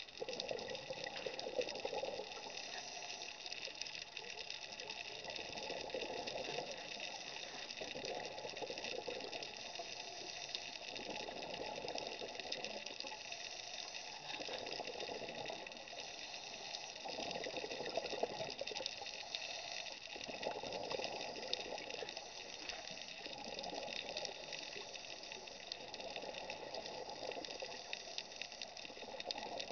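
Scuba divers' exhaled bubbles gurgling, swelling and fading with each breath every few seconds, over a steady hiss heard through an underwater camera housing.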